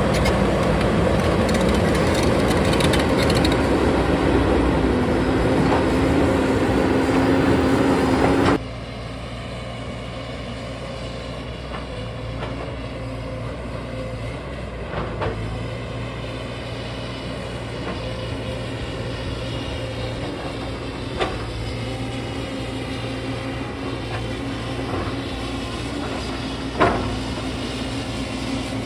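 JCB 220 tracked excavator's diesel engine running steadily with a strong hum, loud and close at first. About eight and a half seconds in it drops abruptly to a quieter, more distant running, with a few sharp knocks.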